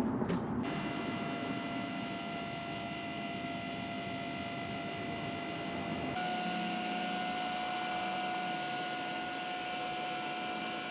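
Genie boom lift's hydraulic pump motor whining steadily as the platform rises. The hum starts abruptly under a second in and steps slightly higher in pitch about six seconds in.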